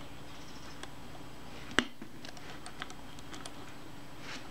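Faint small metallic clicks and ticks of a small screwdriver, screws and loose parts on the metal top plate of a Kodak Retina I camera being dismantled, with one sharper click a little under two seconds in, over a low steady hum.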